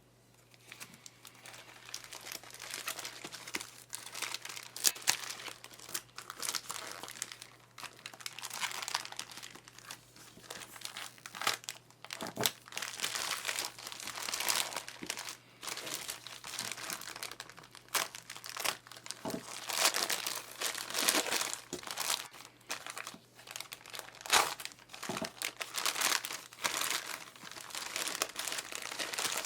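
Packaging being unwrapped by hand: continuous irregular crinkling and rustling with sharp crackles and bits of tearing. A faint steady low hum runs underneath.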